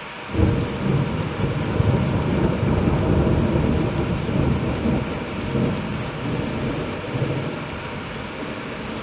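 A thunderclap breaks about half a second in and rolls on as a low rumble for several seconds, fading away near the end, over the steady hiss of heavy rain.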